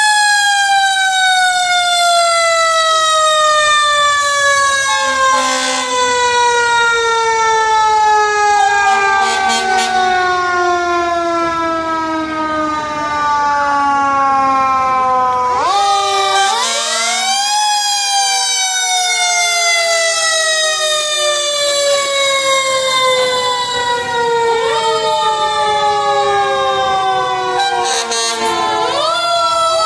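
Fire engine sirens wailing as the trucks drive by. Each siren winds up quickly, then falls slowly in pitch over many seconds, with several sirens overlapping. They wind up again about halfway through and a few times near the end, and a few short horn blasts cut in.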